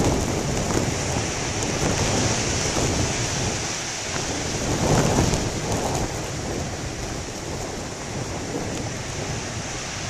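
Strong wind buffeting the microphone over the steady wash of ocean surf, with a louder surge about five seconds in.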